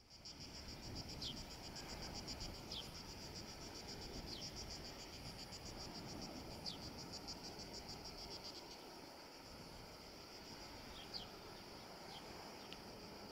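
Insects singing in a fast, even pulsing buzz that fades about two-thirds of the way through, with short falling chirps every second or two and a faint low rush underneath.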